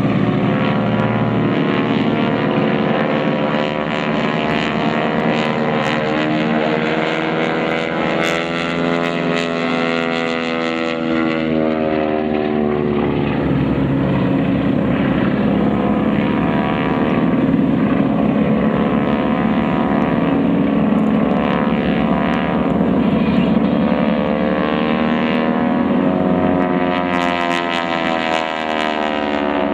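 Several North American T-6 Texans flying overhead in formation, their Pratt & Whitney R-1340 nine-cylinder radial engines and propellers droning steadily. The tone slowly sweeps up and down as the aircraft move across the sky.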